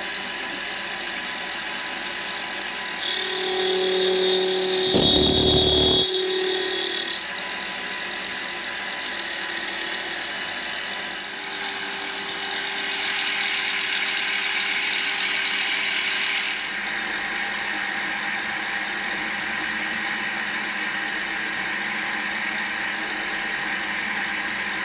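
Small milling machine running steadily. About three seconds in, its dovetail cutter cuts into a brass ratchet wheel with a loud, high-pitched ringing for a few seconds. Later a drill in the spindle bores into the brass wheel for about four seconds.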